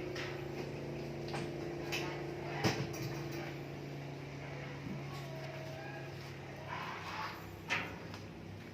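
Motor of a block-ice cutting machine running with a steady hum, with a few short knocks over it; the hum stops about seven seconds in.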